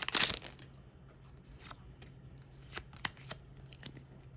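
Foil booster pack crinkling and tearing open in the first half-second, then a few faint sharp clicks and rustles as the trading cards are handled.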